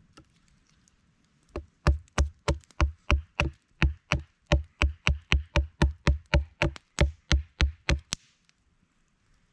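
A Roselli R850 axe chopping a small piece of wood on a log with quick, even, light strikes, about three a second, some twenty in a row, each a sharp knock with a dull thud.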